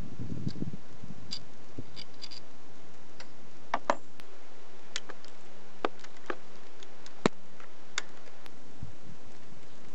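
Scattered, irregular sharp metallic clicks and ticks as a spanner works the cylinder-head bolts on a four-stroke scooter engine, with a low handling rumble at the start.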